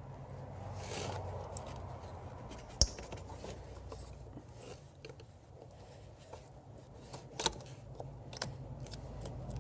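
Plastic ignition-coil connectors being pried and unclipped, with light scraping and handling noise and a few small clicks. Two sharp clicks, about three seconds in and again about seven and a half seconds in.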